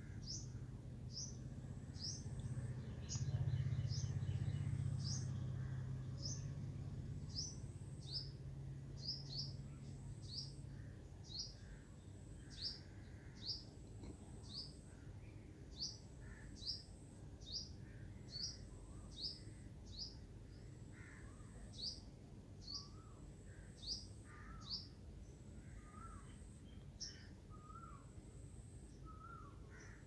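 A bird repeating a short, high, falling chirp over and over, about one and a half calls a second, with softer, lower wavering calls joining in near the end. A low rumble swells in the first few seconds and fades away by about ten seconds in.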